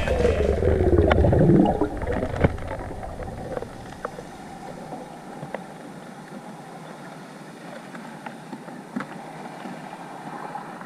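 A song ends in the first two seconds with a falling pitch slide, giving way to underwater ambience picked up by a diving camera: a low steady wash with scattered sharp clicks.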